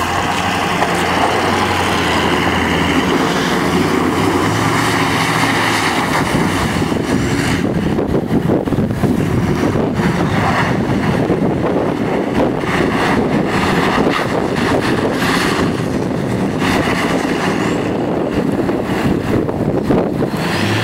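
Ford F-350 dually pickup running hard and steadily as it spins donuts in the snow.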